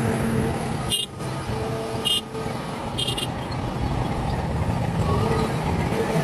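Diesel engines of heavy earthmoving machinery running steadily, with three short high-pitched beeps about a second apart.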